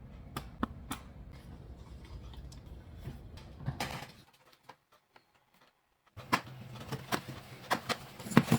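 Scattered small clicks and taps of a Dell Inspiron 15 5000 laptop's plastic case being handled as its bottom cover is taken off. The sound drops out for about two seconds midway, and the clicks come closer together and louder near the end.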